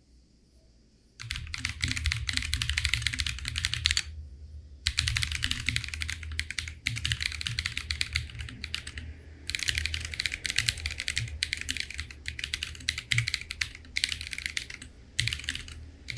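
Fast typing on a mechanical keyboard fitted with Akko Ocean Blue tactile switches: dense runs of key clicks starting about a second in, with brief pauses between runs.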